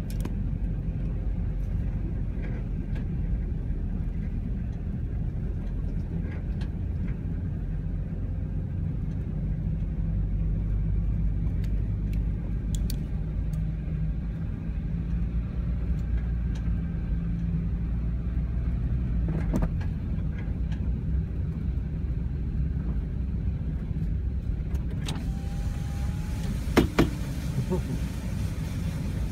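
Steady low rumble of a car driving slowly through floodwater, heard from inside the cabin. A couple of sharp knocks, the loudest near the end.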